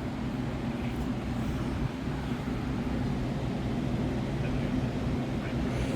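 A steady low machine hum runs evenly throughout, with a faint whir above it and no distinct events.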